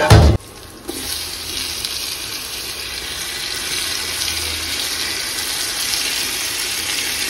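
Onions frying in hot oil in a pot, a steady sizzle, after a brief loud thump right at the start.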